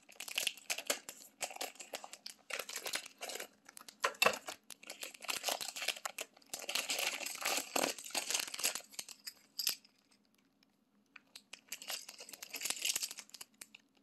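Crinkling and rustling of a fishing flasher's plastic package as the flasher is pulled out, in irregular bursts with a sharp click about four seconds in. It goes quiet for about two seconds near the end, then rustles once more.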